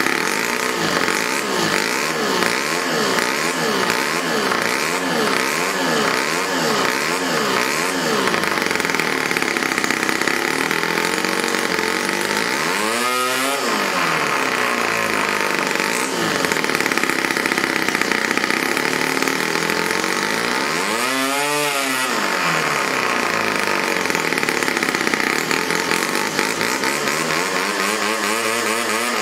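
Homemade single-cylinder four-stroke model engine with a rotary valve and two independent valves, revved by hand on a test bench. At first the throttle is blipped quickly, about twice a second; then the engine holds high revs, dropping toward idle and climbing back up about halfway through, again about two-thirds through, and once more at the end.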